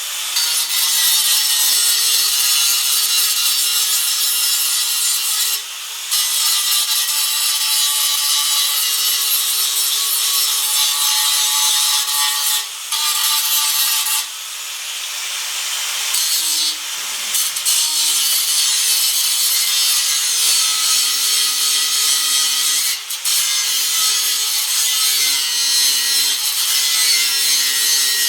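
Power grinder grinding welds flat on car body steel, where rusted holes have been welded up. It runs with a steady harsh hiss, easing off briefly a few times.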